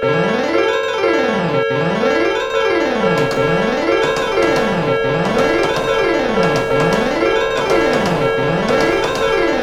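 Piano music: fast runs sweeping down and back up the keyboard over and over, about one sweep every second and a half, over a steady held note.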